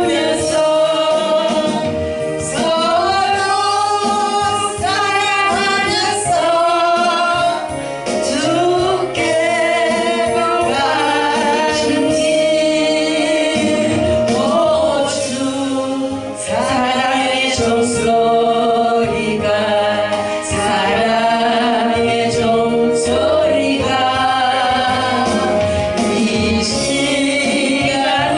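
Two voices singing a Korean gospel song as a duet, in harmony over a steady musical accompaniment.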